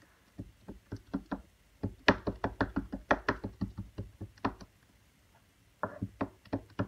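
Memento ink pad tapped quickly and repeatedly onto a clear photopolymer stamp mounted on an acrylic block, inking the stamp: rapid plastic knocks, about six a second, in a long run, a brief pause, then a shorter run near the end.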